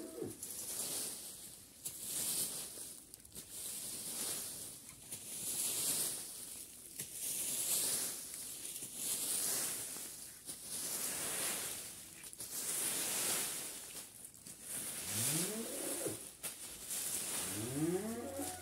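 Rake sweeping through dry fallen leaves, a rustling stroke every couple of seconds. Near the end an animal call rises steeply in pitch twice.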